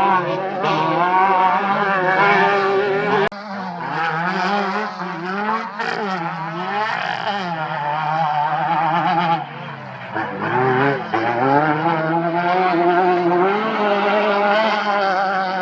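Off-road race vehicle engine running hard on the course, its pitch climbing and falling over and over with the throttle, briefly dropping off about three seconds in and easing for about a second near the ten-second mark.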